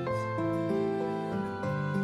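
Background music of held chords, the notes changing every half second or so.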